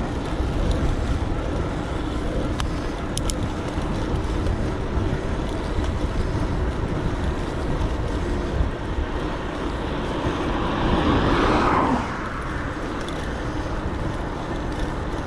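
Wind buffeting the microphone and tyre noise from an electric bike riding along a road, as a steady low rumble. About ten seconds in, a louder rushing noise of a vehicle going past swells up and cuts off sharply.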